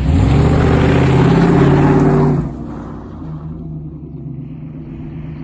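1989 GMC Suburban 2500 4x4's engine revving hard as the truck drives through a mud puddle, its pitch rising in the first moment. After about two and a half seconds it falls away to a quieter, steady drone as the truck moves off.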